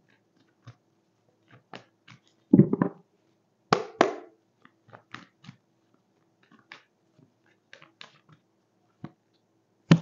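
A deck of tarot cards being shuffled by hand: irregular flicks and rustles of the cards, with louder riffles about two and a half and four seconds in and again near the end.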